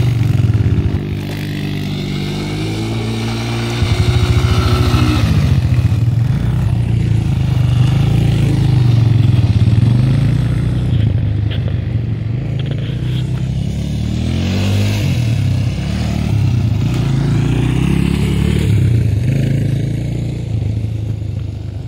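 Quad bike (ATV) engine running and revving, its pitch climbing and dropping again and again as the quad accelerates across the dirt.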